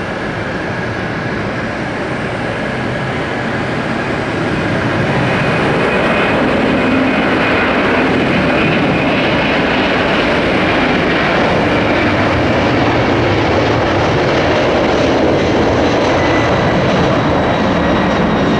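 Airbus A300 freighter's twin jet engines throttling up for takeoff, growing louder about four to five seconds in and then running steadily at takeoff power through the takeoff roll, with a faint high whine over the rushing noise.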